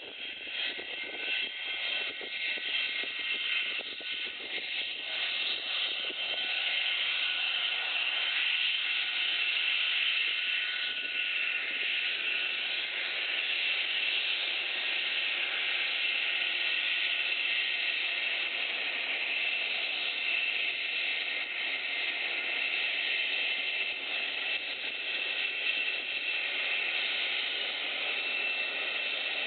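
English Electric Lightning's twin Rolls-Royce Avon turbojets running at taxi power: a steady high whine over a rushing hiss. It grows louder over the first several seconds as the jet taxis closer, then holds steady.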